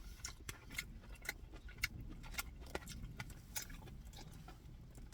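Close-miked chewing of a steak and vegetable bowl: scattered soft mouth clicks and smacks, several a second, over a low steady rumble.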